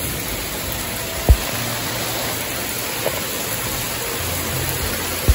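Heavy rain falling steadily on a wet yard, an even hiss of rain. A single sharp low thump about a second in is louder than the rain.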